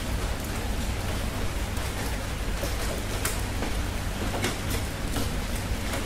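Steady summer rain falling, an even hiss with a low rumble underneath, and now and then a sharper single drop striking close by.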